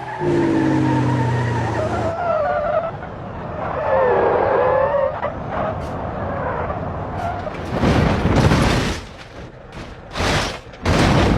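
Off-road truck engine running under load, with tyre skidding and loud bursts of tyre and dirt noise in the second half.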